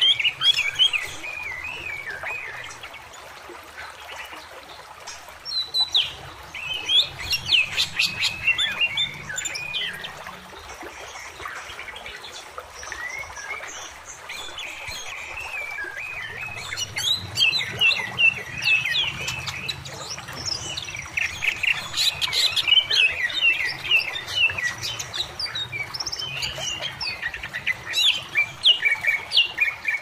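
Songbirds chirping and twittering in quick high notes, in three bouts with short pauses between, over the steady rush of a shallow stream running over rocks.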